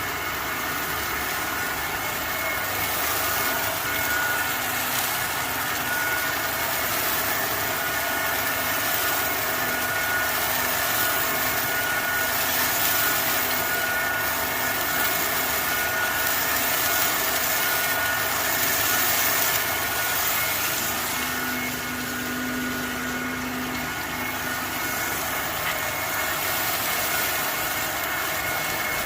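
Workshop machinery running steadily: a constant hum with a few faint high whine tones and an even hiss, unchanging throughout.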